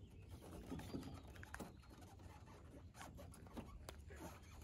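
Faint scattered clicks and scratchy rustles of hands, hook and line while a freshly caught bass is held by the lip and unhooked, over a faint low hum.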